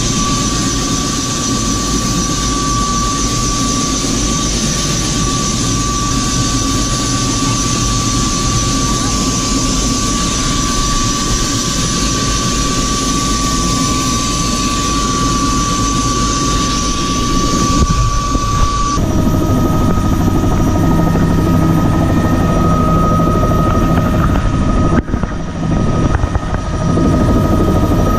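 Bell 206B JetRanger III helicopter running on the ground, heard from the cockpit: a steady high turbine whine over a low rumble. About two-thirds of the way through the sound changes abruptly and the whine sits slightly higher.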